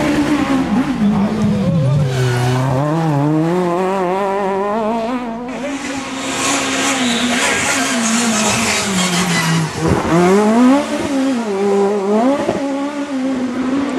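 Peugeot 306 Maxi kit car's 2.0-litre four-cylinder rally engine running hard, its pitch falling off about two seconds in, climbing slowly, then dropping sharply and picking up again near the ten-second mark as the car lifts off and accelerates.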